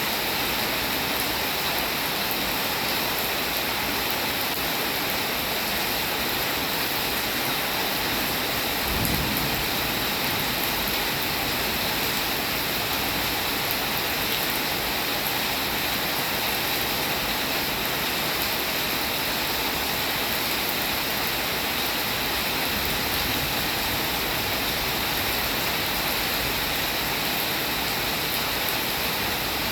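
Steady rainfall, a dense even hiss of many drops with no break in it. A brief low thud comes about nine seconds in.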